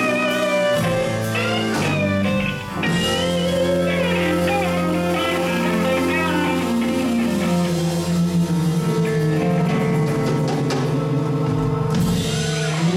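Live blues-rock band of electric guitars, bass, drums and organ playing the closing bars of a slow song. The line steps down and settles into a long held final chord, which stops just before the end.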